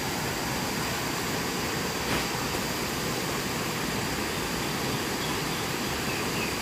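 Steady rushing of a shallow stream flowing over rocks, with a faint brief tick about two seconds in.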